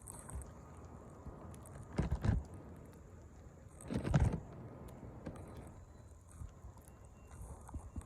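Strong blizzard wind buffeting the microphone: a steady low rush with two louder gusts about two and four seconds in.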